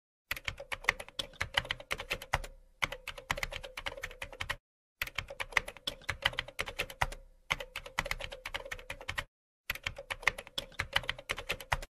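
Computer keyboard typing sound effect: rapid key clicks in several runs of a second or two, broken by short pauses.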